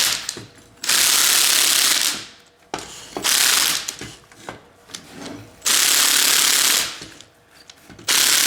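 Impact driver running in about four bursts of a second or so each, a couple of seconds apart, driving the threaded rods of a coil spring compressor to compress a suspension coil spring. Light clicks of handling the tool between the bursts.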